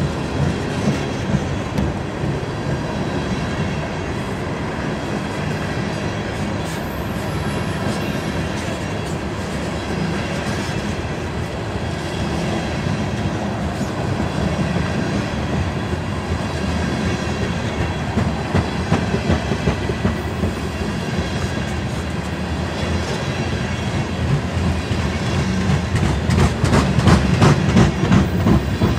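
Loaded aluminum open-hopper coal cars rolling past, a steady rumble of wheels on rail with clickety-clack over the joints, the clacks coming sharper and louder near the end.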